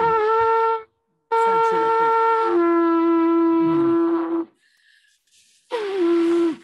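Shofar blown in three blasts: a short one, then a long one that steps down to a lower note partway through, then a shorter one near the end that starts high and settles lower.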